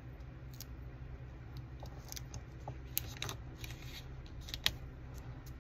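Paper sticker being peeled and pressed onto a planner page: soft paper rustles with a few sharp clicks, the sharpest about three seconds in and just before five seconds, over a low steady hum.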